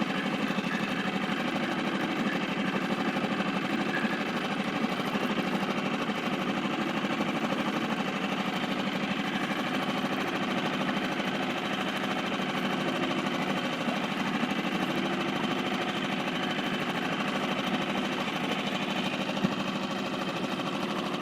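Small Seatan outboard motor running steadily at low trolling speed, a fast even chatter with no change in pitch.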